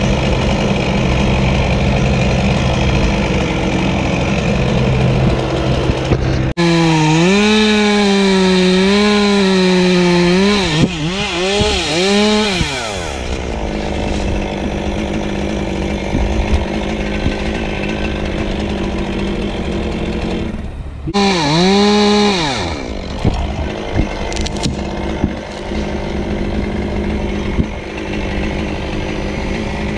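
Chainsaw cutting oak. After a steady engine hum for the first six seconds, the saw suddenly opens to full throttle, its pitch dipping and recovering under load, then winds down. A second short full-throttle burst comes about twenty-one seconds in, followed by a few knocks.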